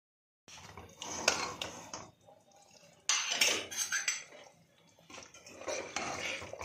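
Steel ladle clinking and scraping against the metal pressure cooker while stirring the mutton curry inside, with a sharp clink about a second in, after half a second of silence at the start.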